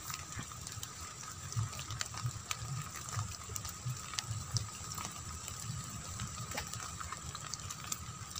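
Light drizzle pattering on a wet rice paddy: scattered, irregular small drop ticks over a soft, faint background with two thin steady high tones.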